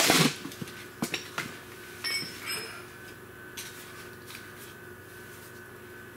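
Metal clanks and clinks as a starter motor and tools are handled against a diesel engine block: a loud clank right at the start, a few knocks, a short ringing clink about two seconds in, then light scattered taps. A faint steady hum runs underneath.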